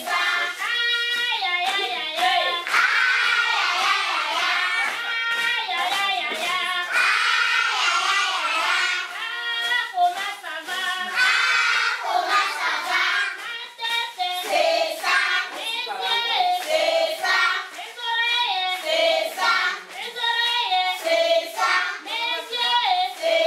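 A class of young children singing an action song together with their teachers, a steady group chorus of children's voices.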